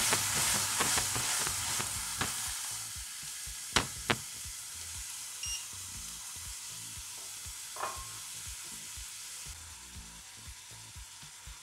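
Sugar syrup sizzling and bubbling in a nonstick frying pan with fresh cranberries just added as it begins to caramelize. The sizzle is loudest at first and fades steadily, with a few sharp clicks about two and four seconds in.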